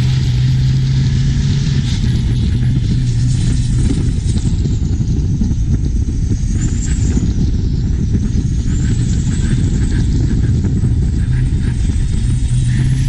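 Turbocharged diesel engine of a modified Thai long-tail racing boat running steadily at speed, heard loud from on board. A faint high whine dips and rises in pitch about halfway through.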